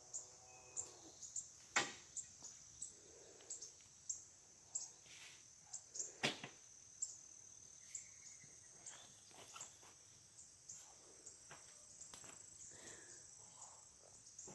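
A steady, high-pitched insect chorus, with scattered knocks and scrapes from a shovel digging into composted manure and rotted wood. The two sharpest knocks come about two seconds and six seconds in.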